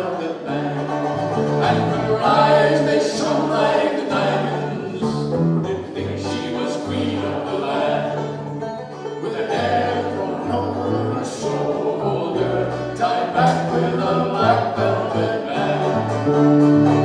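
Live Irish folk music: a five-string banjo picking and an acoustic bass playing a walking bass line, with a man singing the melody.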